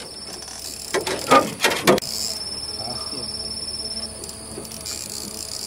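Spinning fishing reel whirring and ticking steadily for about three and a half seconds from two seconds in, as a hooked fish is played on the line. A few sharp knocks come just before it.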